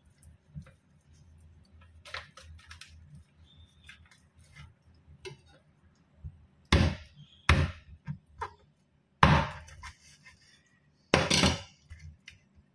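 A raw whole chicken being handled on a wooden cutting board: soft rubbing and small taps, then from about halfway through four loud knocks against the board, the last one the longest.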